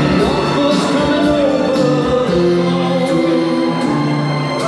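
Wrestler's entrance music: a song with a singing voice over held chords and a steady beat.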